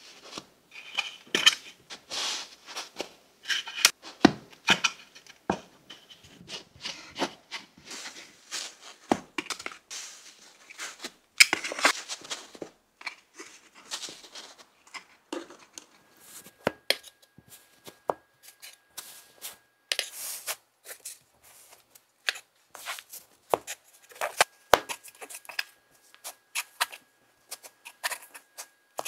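Kinetic sand being squeezed, crumbled and pressed into a hard plastic mold by hand: an irregular run of soft crunching and scraping, with sharp little clicks and taps of fingers and sand against the plastic.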